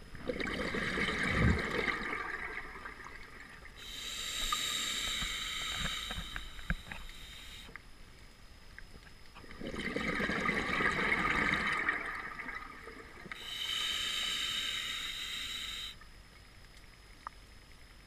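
A scuba diver's regulator through two breaths, each a gurgling rush of exhaust bubbles and a hissing draw of air through the regulator, with short pauses between.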